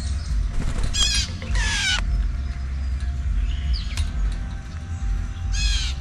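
Blue jay giving three loud, harsh calls that fall in pitch: one about a second in, one just before two seconds in, and one near the end. A steady low rumble runs underneath.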